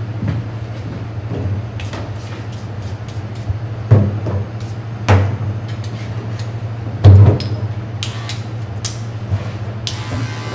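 Barber's tools being picked up and set down on a counter: small clicks and three louder knocks, about four, five and seven seconds in, over a steady low hum. Near the end, electric hair clippers switch on with a buzz.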